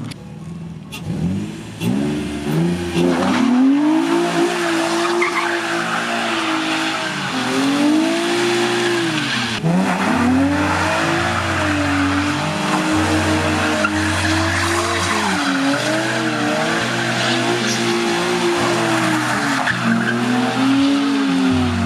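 Infiniti G35's V6 engine revving up and down over and over while the rear tyres squeal in a drift.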